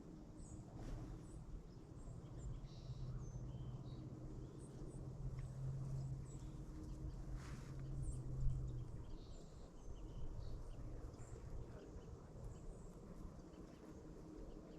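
Faint, scattered bird chirps and calls over a low outdoor rumble, with a steady low hum through the middle seconds.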